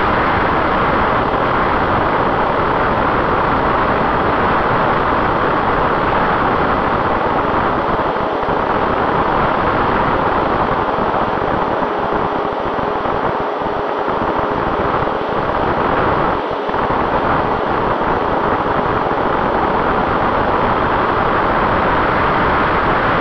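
Electric motor and propeller of an HD-Wing RC flying wing running in flight, heard through its onboard camera as a loud, steady rush of motor and wind noise. The noise dips briefly a couple of times past the middle.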